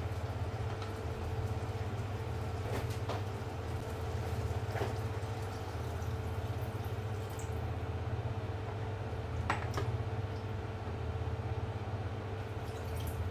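Water poured from a glass measuring jug into a steel cooking pot to make the curry's broth, with a few light clinks, over a steady low hum.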